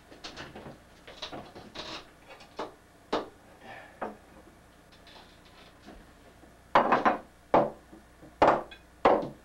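Objects being handled on a wooden office desk: light rustling and small knocks, then about four loud, sharp clatters and knocks in the last three seconds as things are set down on the desk.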